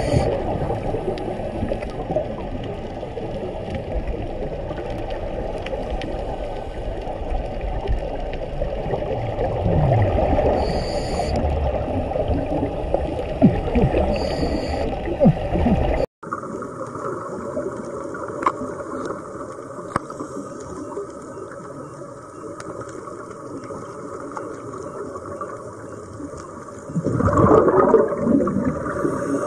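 Underwater sound through a camera housing: a steady rush of water noise with the bubbling gurgle of a scuba diver's exhaled breath, loudest in one burst near the end. The sound drops out for an instant about halfway through and resumes quieter.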